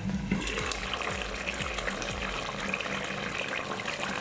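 Curry sauce bubbling as it simmers in the pot, a steady run of small pops and blips.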